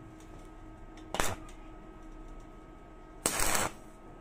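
Stick-welding arc in two short bursts, a brief one about a second in and a longer one near the end: tack welds joining a roller chain to a steel bar.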